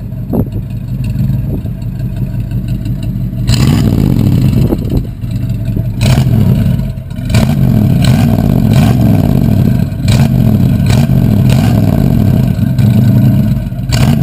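1989 Dodge Ramcharger's V8 engine heard at the tailpipe, idling and then revved in neutral. A few seconds in it gets louder, then it is blipped over and over, the pitch rising and falling about once a second.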